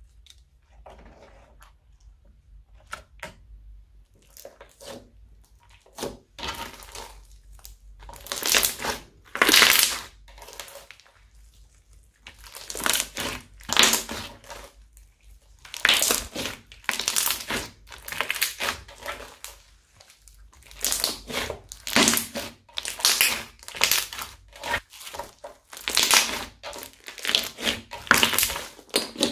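Crunchy slime, studded with small beads, being worked by hand: squeezed and pressed again and again, giving wet crackling squishes. Faint small clicks at first, then louder bursts of crackle, about one each second.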